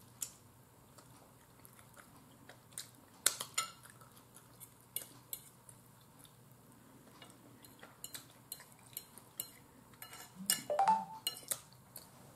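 A metal fork clinking and scraping against a dinner plate while someone eats baked chicken and rice, with quiet chewing in between. The taps come scattered and irregular, with a busier cluster of clinks near the end.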